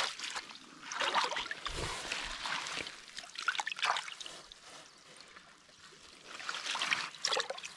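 A hand dabbling and sloshing in a shallow rock pool among wet seaweed, the water trickling and splashing in several short bouts.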